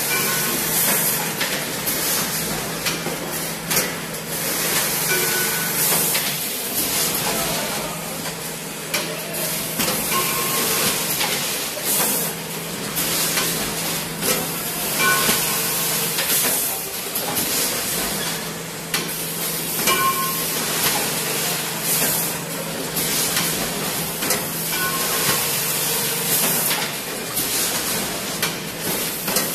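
Automatic 50 kg urea bagging machine running: a steady hum under repeated sharp hisses of compressed air from its pneumatic actuators, with a short clattering work cycle that comes round about every five seconds as each woven bag is handled.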